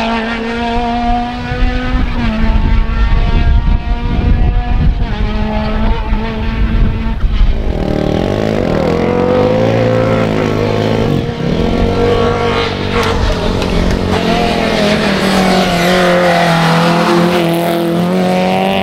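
Rally cars at speed on a tarmac stage, engines revving hard, their pitch rising and falling with throttle and gear changes through the bends. A different, louder car takes over about halfway through. Wind rumbles on the microphone while the first car runs.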